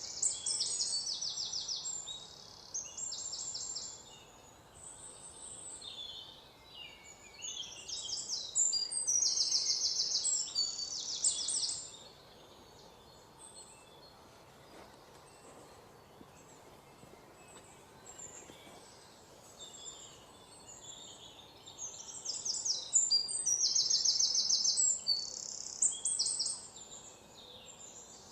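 Songbirds singing: high-pitched chirps and rapid trills in repeated bursts, with a quieter stretch in the middle.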